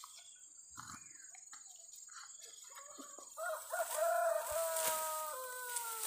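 A rooster crowing: one long call starting about halfway through, held and dropping slightly in pitch toward the end.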